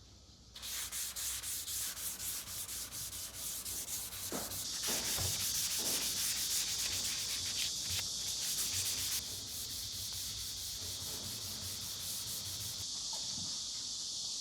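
Sandpaper rubbing across a wooden surface by hand in quick, even back-and-forth strokes. It starts about half a second in and grows louder around the middle.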